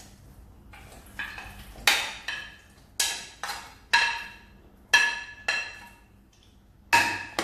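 A metal spatula striking and scraping a ceramic plate as paneer cubes are pushed off it into a wok: a series of sharp, ringing clinks, roughly one a second with lighter ones in between.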